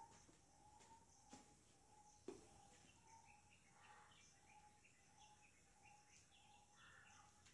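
Near silence: faint room tone with faint bird chirping and a few soft taps of chalk on a blackboard.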